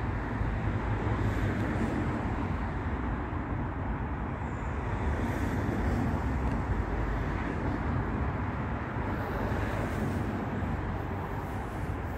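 Steady hum of road traffic with a low rumble underneath, with no single vehicle standing out.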